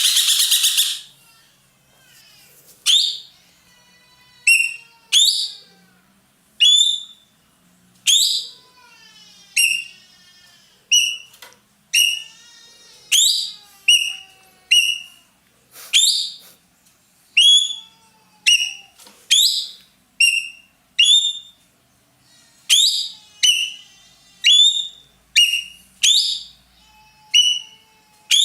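Ekek keling bird calling loudly: it opens with a harsh screech, then gives a long series of sharp whistled notes, each sweeping down in pitch, repeated about once a second and coming faster towards the end, with a few soft rattling trills between them.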